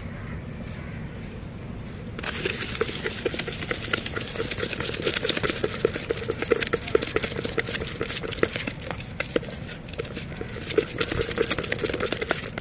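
Puffed rice and spices for jhalmuri shaken hard in a hand-covered plastic mug: a fast, continuous rattling rustle of dry grains against the plastic that starts about two seconds in.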